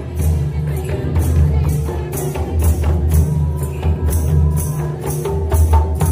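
Mandar barrel drums playing a steady Karma dance rhythm, with a bright percussion accent about three times a second.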